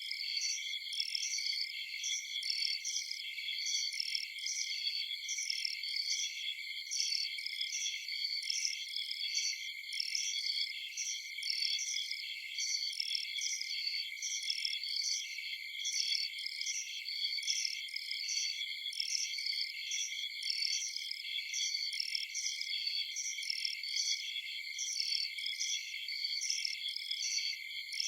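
Night chorus of crickets and other insects: steady, unbroken trilling with a rapid, evenly repeating chirp layered above it, with no pause.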